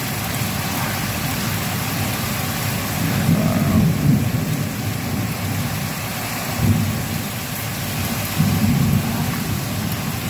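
Heavy thunderstorm rain pouring steadily, with deep rumbles swelling up about three times.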